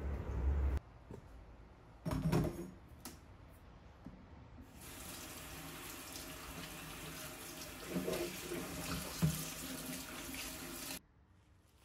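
Kitchen tap running into a stainless steel sink while a white bowl is scrubbed with a sponge under the stream, with a couple of clinks of the bowl. The water starts about five seconds in and stops abruptly near the end, after a single knock about two seconds in.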